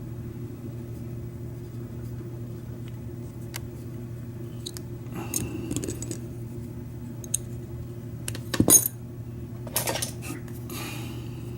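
Small metal clicks and scrapes from a Schlage F-Series lock cylinder and hand tools being handled during disassembly, with a sharp metallic click about three-quarters of the way through, over a steady low hum.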